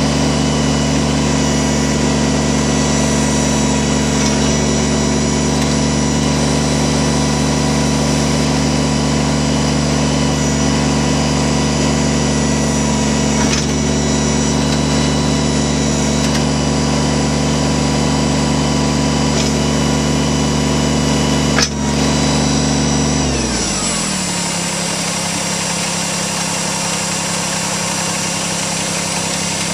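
Kubota BX24 tractor's three-cylinder diesel engine running steadily at working revs, with one sharp knock about three quarters of the way through; shortly after, the revs drop and it settles to a lower, steady idle.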